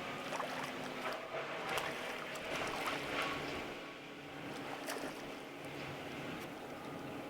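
Steady distant drone of a tree being fed through a wood chipper, with scattered sharp crackles in the first five seconds.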